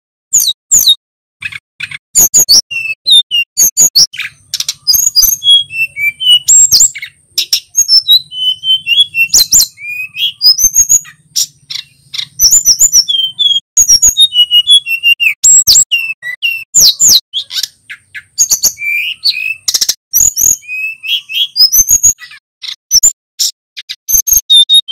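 Male sikatan gunung (hill flycatcher) singing vigorously: a fast, nearly unbroken jumble of high whistled notes, quick glides, trills and sharp clicks, with only short pauses between phrases.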